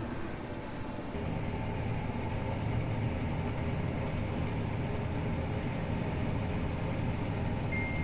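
John Deere T670i combine harvester running while cutting barley, a steady machine drone heard inside the cab. A thin high tone comes in near the end.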